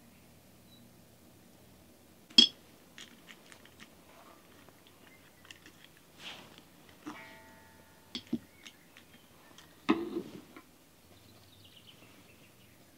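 Scattered knocks, clicks and a brief ringing clink, as of objects being handled and set down; the sharpest knock comes about two and a half seconds in, another about ten seconds in.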